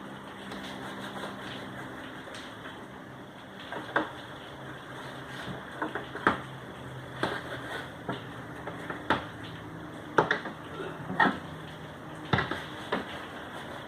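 Irregular light knocks and clicks, a few every couple of seconds, over a low steady hum that stops about two seconds in.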